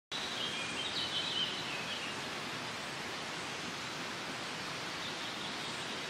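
Forest ambience: a steady, even rushing noise, with a small bird singing a few short high chirps in the first two seconds and once more faintly near the end.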